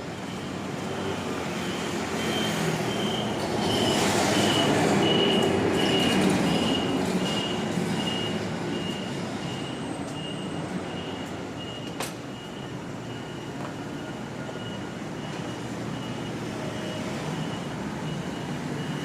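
Street traffic, with a vehicle passing close by: its noise swells for about four seconds, then fades. A steady series of short, high beeps repeats through it.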